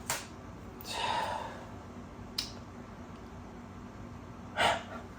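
A person breathing out audibly twice, once softly about a second in and once more sharply near the end, between a couple of sharp little clicks from laptop parts being handled.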